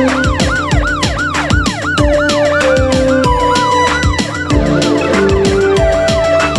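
Emergency-vehicle siren sound effect in a fast repeating rise-and-fall, about three sweeps a second, over background music with a steady beat.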